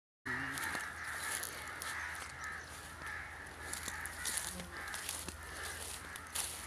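A continuous, pulsing chorus of bird calls, with footsteps crunching on dry grass and leaves.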